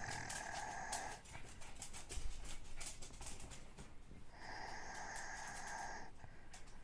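A sleeping person snoring: a whistling, wheezy breath that ends about a second in, a low rattling snore around two seconds in, and another whistling breath of about a second and a half near the end.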